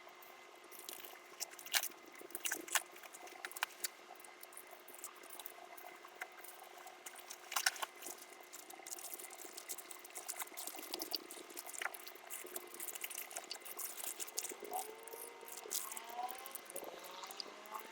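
Packaging being handled while a CNC kit is unboxed: irregular crackling and sharp clicks and taps, with a few short squeaks near the end.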